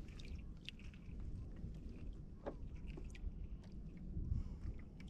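Faint wind and water rumble around a kayak, with scattered small clicks and ticks at irregular intervals.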